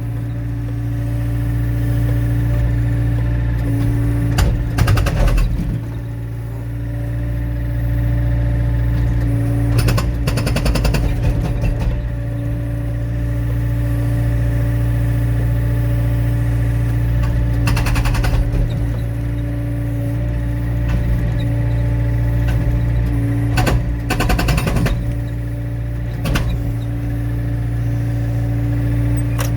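Excavator diesel engine running steadily, with several short bursts of rapid hammering from its hydraulic breaker as it pounds logs to split them for firewood.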